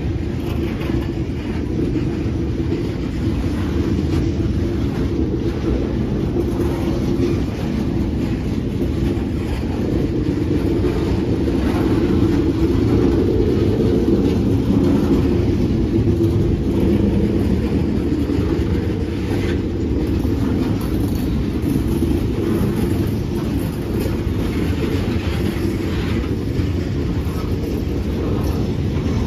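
Freight train cars rolling past at close range: a steady, unbroken rumble of steel wheels on the rails.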